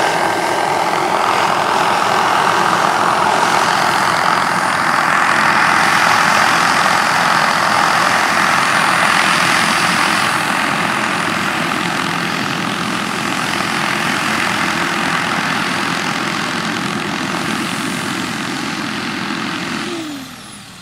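Turbine-powered scale model Bell AH-1 Cobra helicopter running: a steady turbine whine over the rotor noise while it flies low and settles to land. Near the end the sound drops away quickly, the whine falling in pitch as the turbine winds down.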